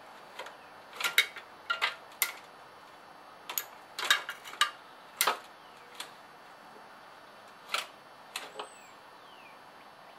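Irregular sharp metallic clicks and light taps from hand tools and a throttle cable being fitted on a garden tractor's small engine, about a dozen in all, the loudest around one second in and around four seconds in.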